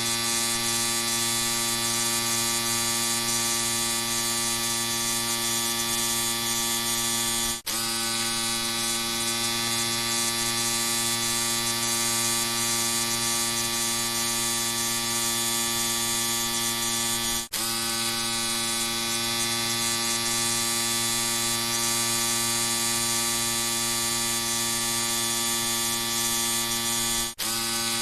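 Electric shaver running with a steady, even buzz, dropping out for an instant three times about ten seconds apart.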